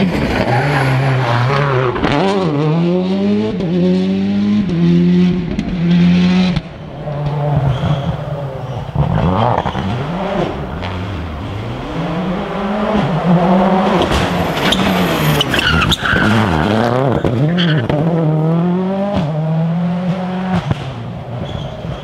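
Rally cars driven flat out, one of them a Ford Focus WRC. The engine note climbs and falls back again and again as the drivers shift and lift for the bends, with a sudden break about six and a half seconds in, where one car's sound gives way to the next.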